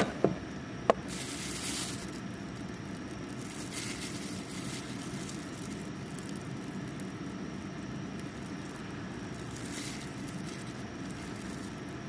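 Two sharp clinks of chopsticks against a ceramic bowl in the first second, over a steady low background noise with a few brief hissy swells.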